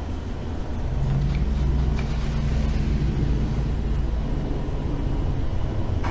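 A low, steady rumble that gets louder about a second in.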